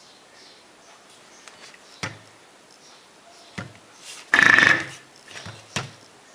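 Objects being handled: a few sharp knocks as things are set down, and a short, loud scraping rustle about four seconds in.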